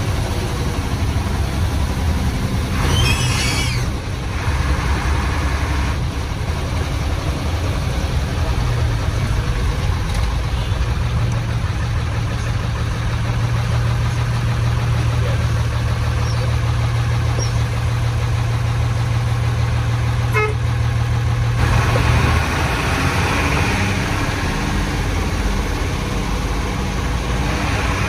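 Old Hino bus engine running as the bus drives, heard from inside the cabin, with its deep rumbling exhaust; through the middle it holds a steady low drone. A brief higher-pitched sound cuts in about three seconds in.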